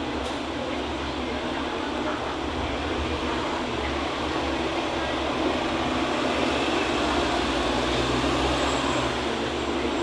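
Busy city street ambience: a steady wash of traffic noise with a low rumble underneath, growing a little louder in the second half as heavier vehicles pass.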